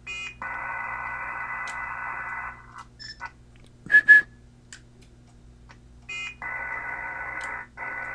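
Short electronic courtesy beeps from a remote radio link, each followed by a stretch of narrow, telephone-like receiver hiss from the HF radio's audio, signalling the transmitter dropping back to receive. A pair of sharp, loud clicks with a brief tone sounds a little under four seconds in.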